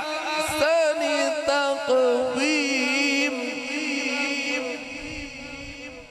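A man's voice reciting the Quran in melodic tajweed style, drawing out a long ornamented phrase that wavers up and down in pitch, then fading away over the last couple of seconds.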